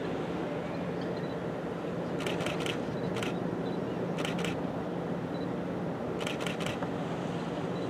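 A steady low hum with wind and water noise, broken a few times by short runs of quick, sharp clicks.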